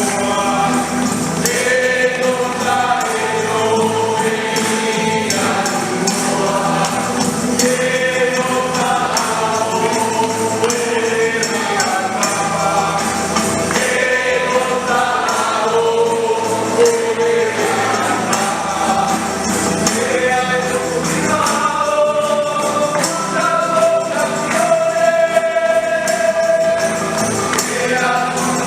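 Choir singing a hymn, accompanied by a shaken tambourine.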